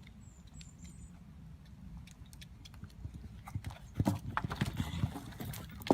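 Animal hooves clopping: a scatter of irregular knocks over a low rumble, getting louder about four seconds in.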